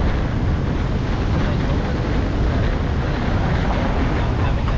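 Steady wind rush buffeting the microphone over the road noise of a car driving along a dirt road.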